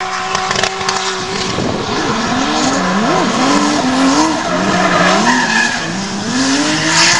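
Drift car's engine revving hard, its pitch swinging up and down over and over as the driver works the throttle through the slide, with the rear tyres squealing and screeching against the tarmac. The engine note holds steady for about the first second before the revs start rising and falling.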